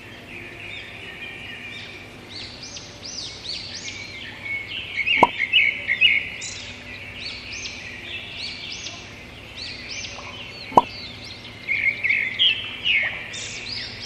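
Small birds chirping and twittering continuously, many short high calls overlapping. Two light sharp taps stand out, about five and eleven seconds in.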